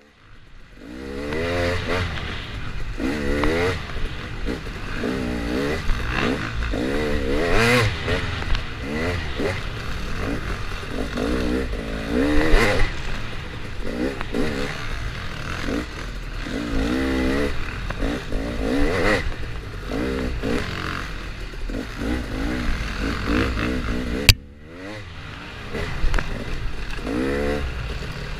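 Dirt bike engine revving hard and easing off again and again as it rides a rough trail, its pitch climbing with each burst and falling between. The sound drops out abruptly for a moment near the end, then picks up again.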